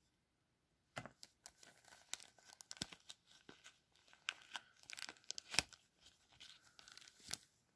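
Stickers and their backing being handled and shuffled: faint, irregular crinkling with scattered small clicks, a few of them sharper.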